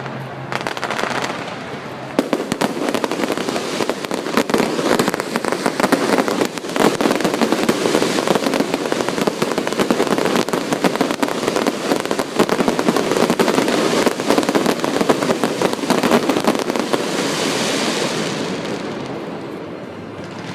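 Fireworks display: a dense, continuous barrage of crackling and popping bursts that dies away into a fading hiss near the end.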